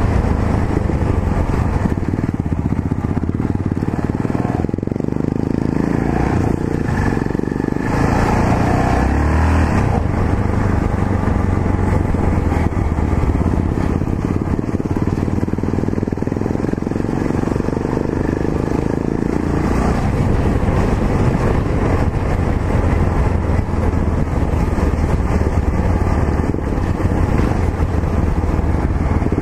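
Yamaha XT660Z Ténéré's single-cylinder four-stroke engine running steadily under way on a dirt road, with a continuous rumble and noise.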